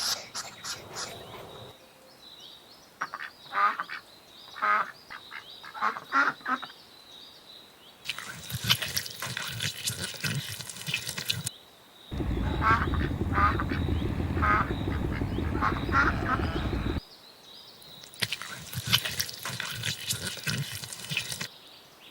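Farm animal calls in a run of short clips, each a series of brief repeated calls. In the middle stretch the calls sit over a loud low rumble that starts and stops abruptly.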